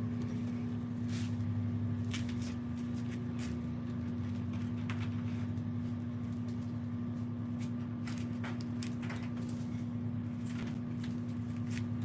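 Steady low machine hum holding one pitch, with a few light clicks and rustles scattered through it.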